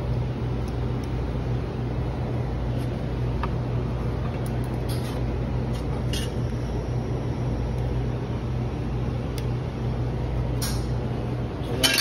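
Steady low machine hum, with scattered light clicks and taps of metal parts being handled.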